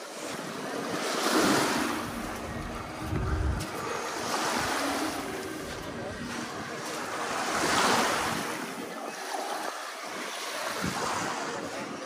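Sea surf washing up a sandy beach, swelling and fading four times about every three seconds, with wind buffeting the microphone.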